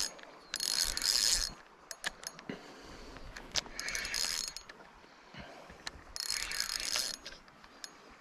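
Spinning reel whirring in three bursts of about a second each, with scattered clicks in between, as a hooked Atlantic salmon is played on the line.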